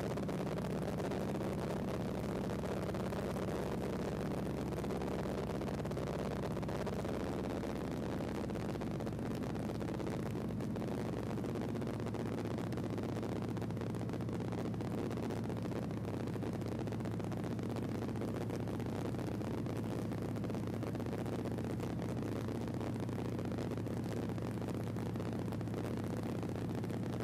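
Light aircraft's propeller engine droning steadily in cruise, heard from inside the cabin of a high-wing bush plane.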